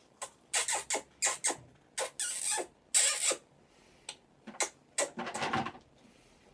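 Wet kissing and sucking smacks as an African grey parrot works its beak against a woman's lips: a string of about ten short, sharp smacks with brief pauses, a longer, rougher one near the end.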